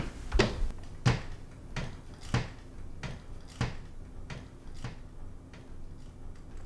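An even series of sharp knocks, about one every two-thirds of a second, growing fainter over the last few seconds.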